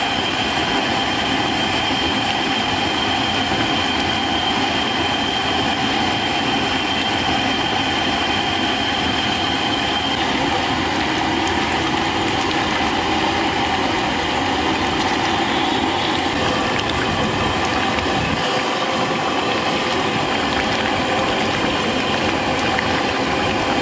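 Gas burner running steadily under a large steel kadai of simmering chicken curry: a constant rushing noise with a few faint steady tones in it.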